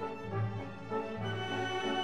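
Background music: slow, sustained orchestral-style chords that shift every second or so.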